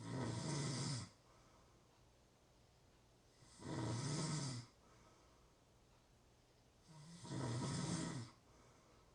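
A sleeping person snoring, three snores about three and a half seconds apart, each lasting about a second.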